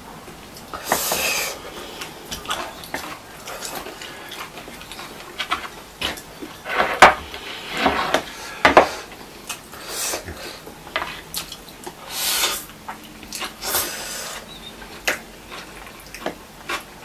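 Close-up eating sounds: chopsticks clicking against plates and bowls, with several short bursts of slurping and chewing of noodles and rice.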